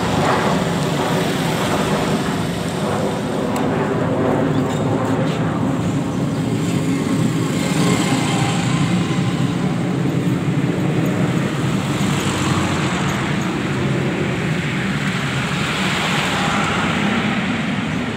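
Steady road traffic noise, with vehicle engines running and motorcycles passing close by.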